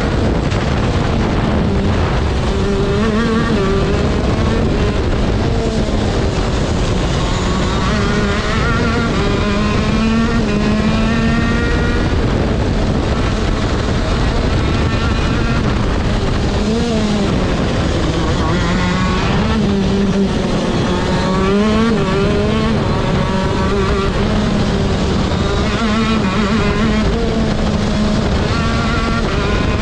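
TM KZ10C 125cc two-stroke shifter kart engine at racing speed, heard from onboard: the revs climb again and again through the gears and drop back sharply on braking and downshifts into the corners.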